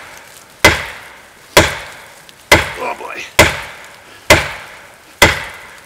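The composite handle of a Fiskars 28-inch chopping axe is deliberately overstruck against a sugar maple trunk: six sharp wooden whacks, about one a second, each ringing briefly.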